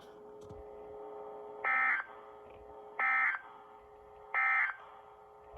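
Emergency Alert System end-of-message data bursts: three short, identical bursts of digital data tones about 1.3 seconds apart, which signal the end of the alert message. A faint steady hum lies between them.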